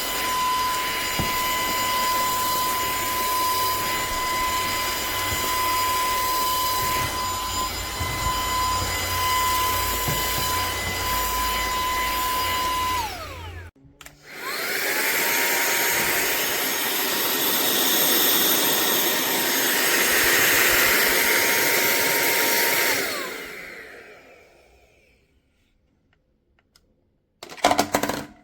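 Cordless handheld vacuum running with a steady high whine, falling in pitch and cutting out about thirteen seconds in. It is switched on again a second later, rises to speed and runs for about eight more seconds before winding down and fading out. A brief loud noise comes near the end.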